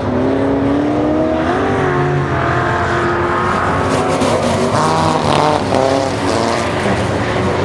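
Several V8 dirt-track race cars running practice laps, their engines rising and falling in pitch as they throttle through the turns and pass one another.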